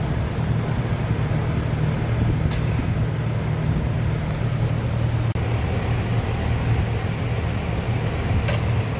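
Steady low mechanical hum, with a couple of short light clinks, one about two and a half seconds in and one near the end.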